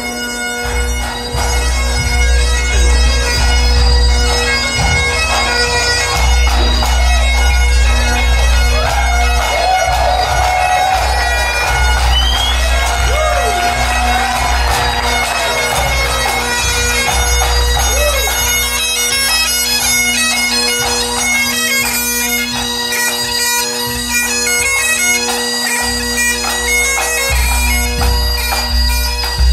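Great Highland bagpipes of a pipe band playing a tune, with steady drones held under the chanter melody.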